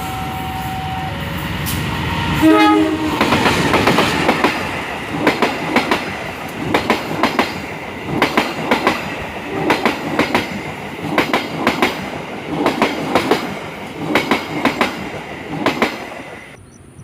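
Passenger train passing close by. A horn sounds briefly at the start, then the wheels clatter over the rail joints in regular clusters of sharp clicks, and the sound cuts off abruptly near the end.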